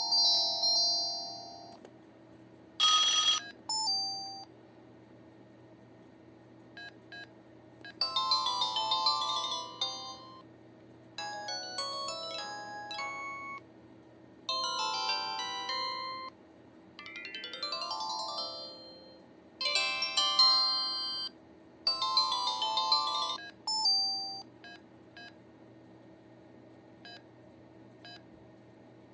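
LG C1300 flip phone's ringtones played through its small speaker, one short electronic melody after another, each cut off after a second or two, with short beeps between them. One snippet about two-thirds of the way through is a sweeping tone that glides up and down at once.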